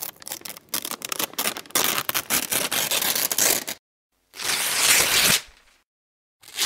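Paper being crumpled and torn, with dense crackling and sharp crinkles for about four seconds. After a silence comes a smooth, papery hiss lasting about a second, and another begins near the end.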